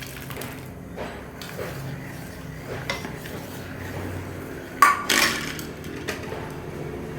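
A metal spoon scraping and clinking in a cooking pot as fried ingredients are stirred into simmering payasam, with two sharp metal clinks about five seconds in.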